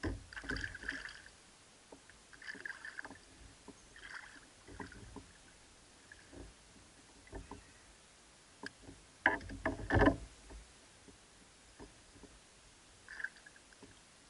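Scattered knocks and clatter of gear against a sit-on-top fishing kayak's hull as a fish and a lip-grip lanyard are handled, loudest as two heavy thumps about nine and ten seconds in.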